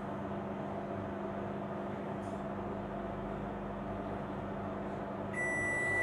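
Menumaster commercial microwave oven running with a steady hum while heating a cup of water on its newly replaced magnetron. About five seconds in, the hum cuts off and a long, steady, high end-of-cycle beep begins as the timer runs out.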